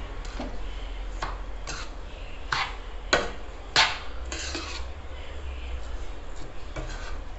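A spoon stirring and scraping fine vermicelli through sticky syrup in a nonstick pan, with irregular clicks and knocks of the spoon against the pan. The sharpest knocks come a little past the middle, over a low steady hum.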